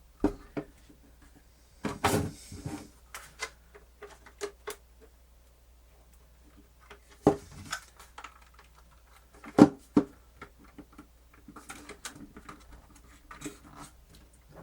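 Scattered clicks and knocks of a portable cassette player's mechanism, buttons and case being handled and fitted back together. A few sharper knocks stand out at about 2, 7 and 10 seconds in.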